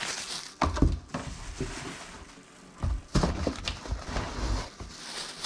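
Plastic wrapping crinkling and a cardboard box rustling as a bagged firework shell is handled and the next one is lifted out of the box, with dull thumps about a second in and again near three seconds in.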